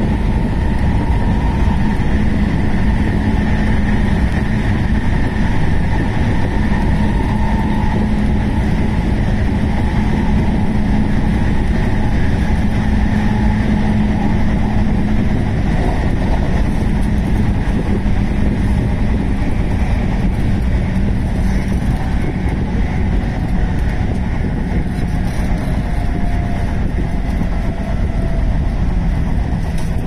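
JR West 221 series electric train running at speed, heard from inside the car: a steady rumble of wheels on the rails with a steady hum under it that fades about halfway through.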